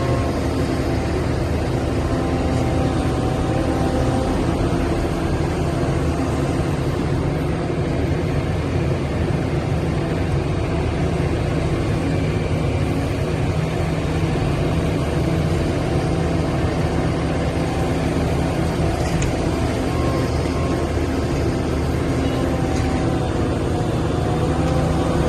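Diesel engine of a Liebherr 974 hydraulic excavator running loud and steady, a deep even drone that hardly changes.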